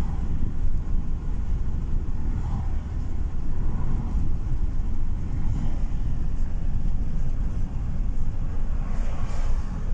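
Steady low road rumble inside a car's cabin while driving at speed.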